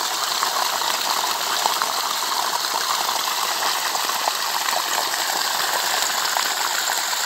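Water gushing steadily from a dam's 100 mm overflow pipe running full and pouring onto the ground below; the pipe is too small to carry all the water.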